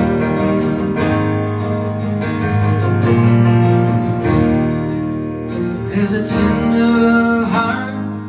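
Instrumental intro to a country song played live: two acoustic guitars strummed, with keyboard chords held underneath.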